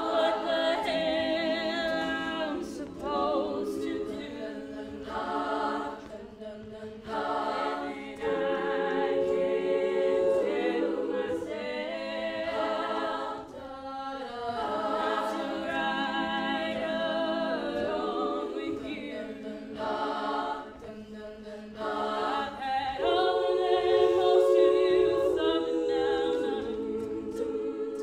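Women's a cappella group singing in close harmony, with two soloists leading over the ensemble's sustained backing chords, in phrases a few seconds long.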